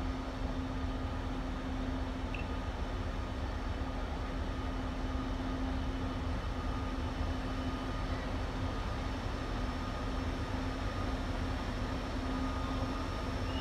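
Siemens ES64U2 Taurus electric locomotive (ÖBB class 1116) slowly drawing a freight train in: a steady electric hum over a low rumble.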